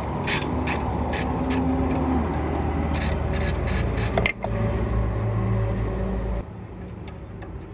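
Socket ratchet clicking in short strokes as an alternator mounting bolt is loosened, over the steady low rumble of a running engine that drops away about six seconds in.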